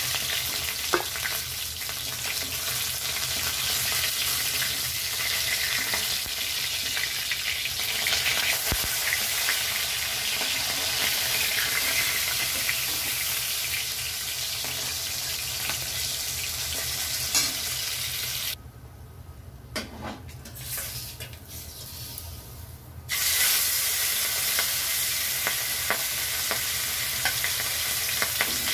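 Catla fish steaks shallow-frying in hot oil in a metal kadai: a steady sizzle, with scattered clicks and scrapes from a metal spatula turning and lifting the pieces. The sizzle drops away for about four seconds past the middle, then returns.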